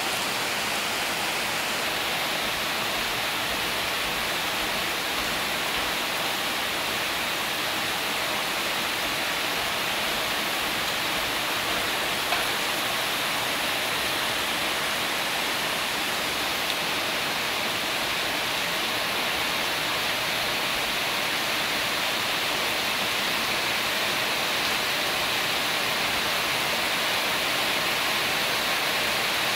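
Heavy rain pouring steadily on corrugated tin roofs and trees, a dense even hiss that does not let up.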